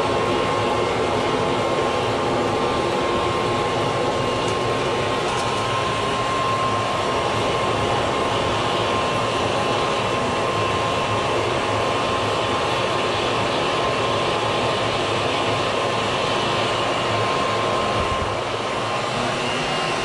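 Steady roar of a homemade soil-lined bucket furnace blasted by a small electric blower, fire and air rushing together. A thin steady whine rides on it and stops a couple of seconds before the end, where the roar eases slightly.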